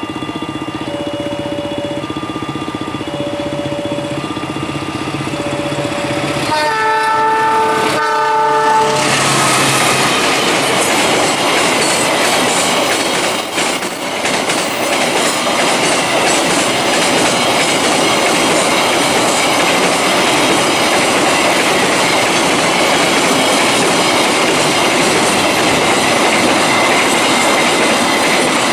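A level-crossing warning siren sounds in on-off beeps, about one a second; here the siren is a recording played through a megaphone in place of the crossing's broken horn speakers. About seven seconds in, a train horn sounds a chord for about two seconds. Then the train runs over the crossing, a loud steady rush of wheels with clickety-clack over the rail joints.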